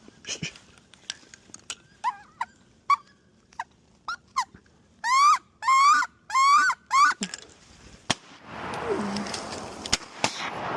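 A series of short squealing whistled calls, rising then falling in pitch, typical of wood ducks: a few faint ones, then four loud calls in quick succession about halfway through. A rushing hiss builds near the end.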